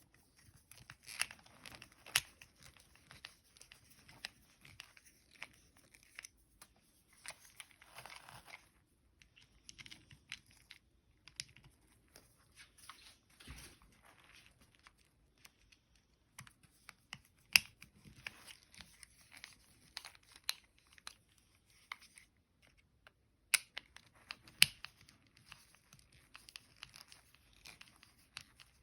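Close handling noises: irregular crinkling and tearing with many sharp clicks and taps, in a small room.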